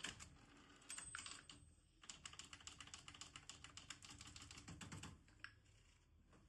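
Facit manual typewriter being typed on fast: a quick run of keystrokes, a short break about two seconds in, then another fast run that stops a little after five seconds, with one last stroke just after.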